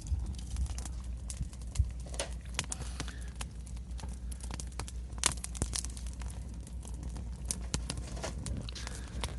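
Footsteps crunching at an irregular walking pace, over a steady low rumble.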